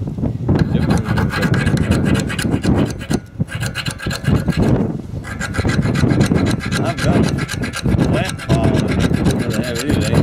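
A hand file rasping back and forth over the rusty steel crankshaft of a Briggs & Stratton Intek engine, filing the rust off in quick strokes. It pauses briefly a few times.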